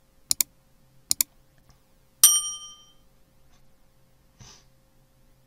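Subscribe-button animation sound effect: two quick double mouse clicks, then a bright bell ding that rings out for most of a second. A faint short swish follows near the end.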